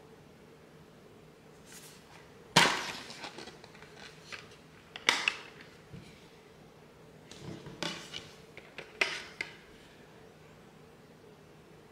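Handling of a metal Blu-ray steelbook and its discs. There is a sharp clack as the case is opened, about two and a half seconds in. Several plastic clicks and snaps follow as a disc is pressed and pulled off its hub.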